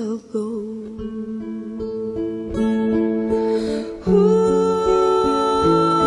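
Background music: acoustic guitar picking a slow melody, with a louder held note joining about four seconds in.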